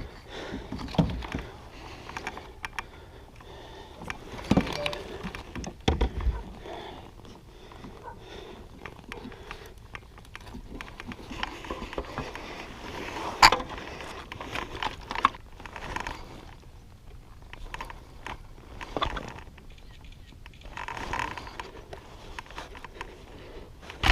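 Irregular knocks, clicks and light rattling of gear being handled aboard a fishing kayak, with one sharp click about halfway through.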